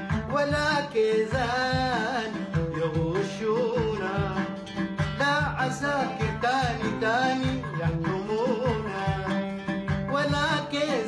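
A man singing and accompanying himself on the oud, plucking notes in a steady rhythm under the vocal line.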